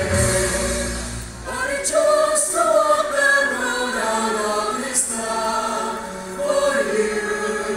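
Choir singing, with a short lull about a second and a half in before the next phrase begins.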